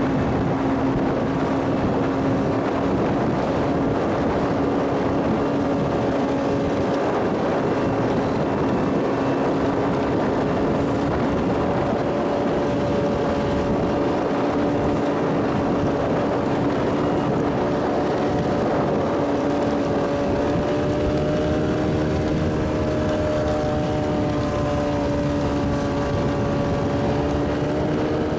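Motorboat engine running steadily under way, a constant drone with a steady hum whose pitch drifts slightly upward in the second half.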